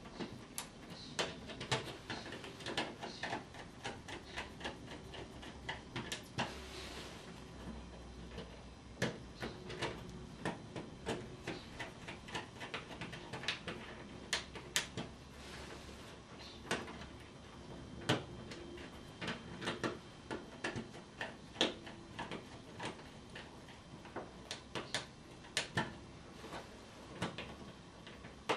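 Irregular small clicks, taps and rustles of fingers handling electrical cable cores and working them into the screw terminal blocks of a plastic ceiling rose.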